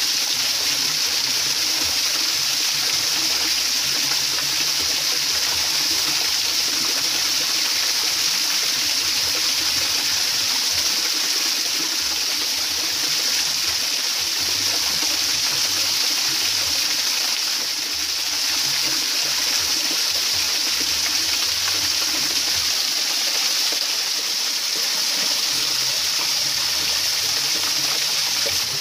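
Shallow stream water rushing over rocks, a steady unbroken flow.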